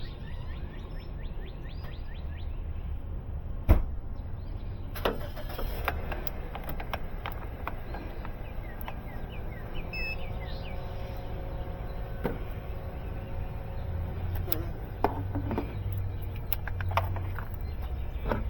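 Low steady rumble of an engine left running, with a few sharp clicks and knocks from hands working at the car's electrical connections; the loudest knock comes about four seconds in.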